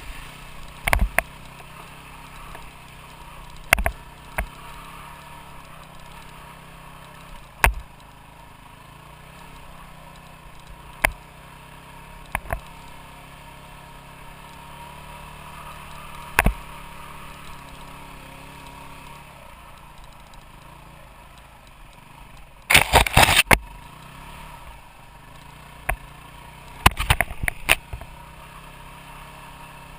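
Off-road motorcycle engine running at low, fairly steady revs, heard from on the bike. Sharp knocks and clatter come every few seconds as the bike jolts over rough trail, with a loud burst of clatter about three quarters of the way through.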